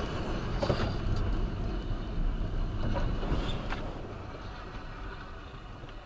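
Car tyres hissing and rumbling on a rain-soaked road, heard from inside the car, with a few brief sharp knocks or scrapes in the first few seconds. The road noise fades over the last couple of seconds.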